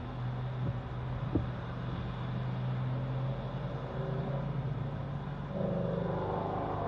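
Steady engine and road noise of a moving car heard from inside the cabin, with one short knock about a second and a half in.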